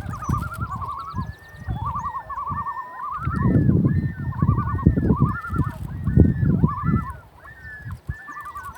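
Several common loons calling over one another with rapid wavering tremolo calls and repeated higher arching notes. Loud low rumbles come and go underneath, heaviest in the middle.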